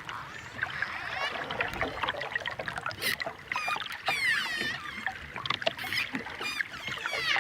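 Dolphins whistling and clicking: several high whistles that glide down in pitch, one following another, mixed with quick trains of clicks and buzzing pulses.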